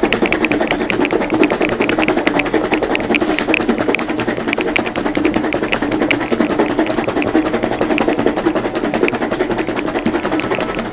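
Pieces of peeled taro root and water sloshing and rattling inside a sealed plastic box that is shaken hard back and forth by hand, in a fast, steady rhythm. This is the shaking that draws the sticky starch out of the raw taro.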